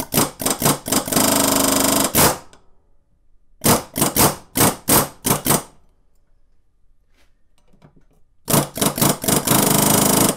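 Pneumatic air hammer with a chisel bit chattering against the lower tapered steering-stem bearing of a dirt bike, driving the bearing off the stem. It comes in three spells of short trigger bursts and longer runs of rapid hammering: at the start, around four to six seconds in, and again from about eight and a half seconds, with quiet gaps between.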